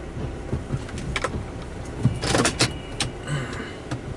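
Scattered clicks and a brief cluster of rattling heard from inside a stopped car's cabin, over a steady low hum.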